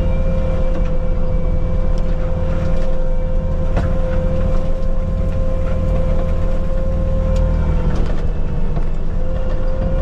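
Bobcat T750 skid steer running hard with its disk forestry mulcher spinning: a loud, steady engine rumble under a high whine, with scattered sharp clicks and knocks. The whine sags briefly a little before the end.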